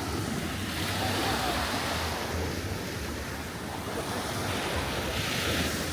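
Ocean surf washing onto a beach in a steady rush, with wind buffeting the microphone.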